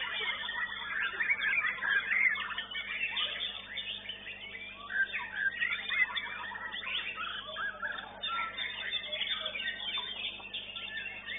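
Caged songbirds singing at once, a dense mix of overlapping chirps, whistles and warbled phrases with no pause.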